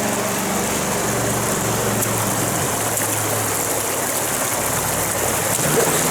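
Steady rush of a river flowing over rocks, heard up close.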